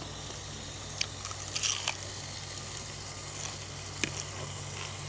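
A few light clicks and taps of a fork against a plate over a steady hiss and low hum.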